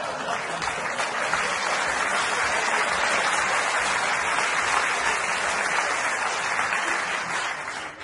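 Theatre audience applauding steadily, the clapping dying away near the end.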